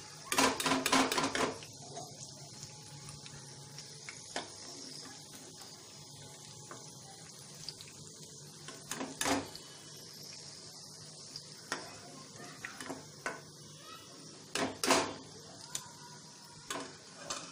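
Steel slotted spoon clinking and scraping against a wok and a mesh strainer as shallow-fried cutlets are lifted out of the oil, in several clusters of clinks, over a steady hiss of the oil still sizzling.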